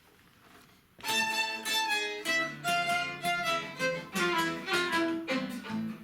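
Instrumental introduction of a tango song: a violin melody over guitar, with a lower bowed line joining a little later. It starts about a second in, after a near-silent moment.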